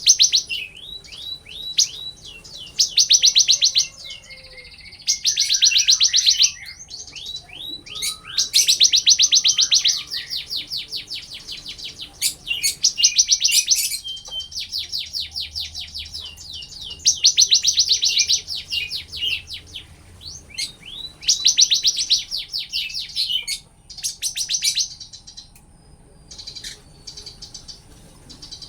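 Bar-winged prinia (ciblek) singing in loud, rapid high trills of fast-repeated notes, burst after burst with short pauses between and a few hooked single notes among them.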